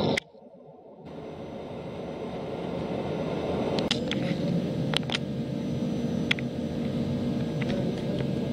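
TOS Trencin SN 63 C gap bed lathe running under a turning cut: a steady mechanical rumble with scattered sharp ticks, likely metal chips. The noise cuts out just after the start and builds back up over a few seconds. A steady whine joins about four seconds in.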